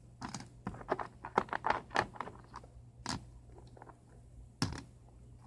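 Small stones clicking and knocking together as they are picked up and handled: a quick run of clicks over the first two seconds, then two single knocks later.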